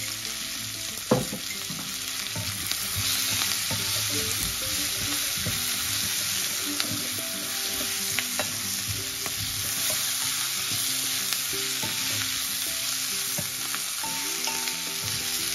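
Shredded cabbage and potatoes sizzling in hot oil in a stainless steel pan while being stirred with a wooden spoon, a steady hiss with small scraping ticks. There is one sharp knock about a second in. This is the sautéing stage of a cabbage and potato curry.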